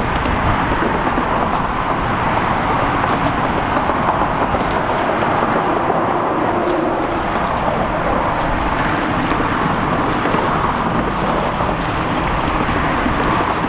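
Steady, even roar of road traffic crossing a nearby bridge, with no change in level.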